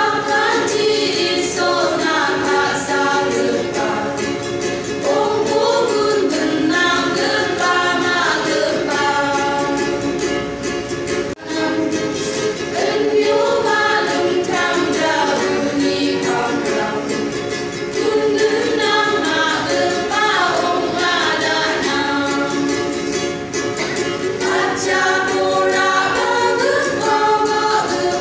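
Women's choir singing a hymn together from songbooks, several voices in phrases, with a brief dropout about eleven seconds in.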